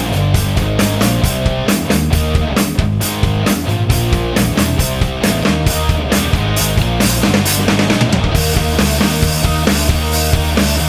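Loud rock music with a driving drum kit and distorted guitar.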